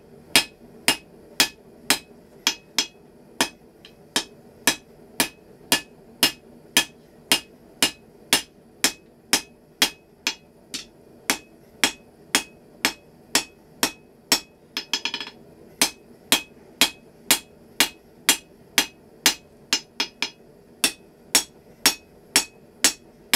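Hand hammer striking red-hot rebar on an anvil in a steady rhythm of about two blows a second, each blow ringing. The bar is being hammered square, the first step of forging a flint striker.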